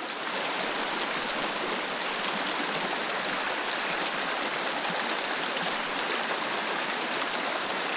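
Creek water running over rocks: a steady, even rushing.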